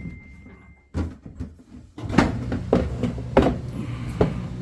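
Washer pedestal drawer being set onto its slide tracks: a series of sharp knocks and clunks, with a low steady hum coming in about halfway through.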